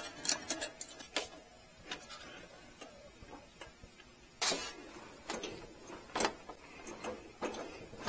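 Sparse light clicks and taps of hands handling small parts and hoses in a mini-truck's engine bay, with one louder short scuffing rustle about halfway through.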